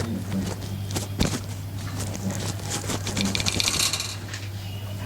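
Caged Fischer's lovebirds and budgerigars chirping and chattering, busiest about two to four seconds in, with scattered sharp clicks over a steady low electrical hum.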